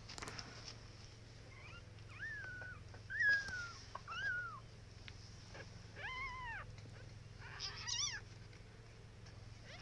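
Kitten mewing: about six short, high-pitched mews at uneven intervals, each rising and then falling in pitch.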